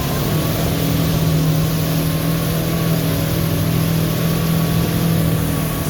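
Off-road vehicle engine running steadily at an even pitch as the vehicle crawls through a water hole.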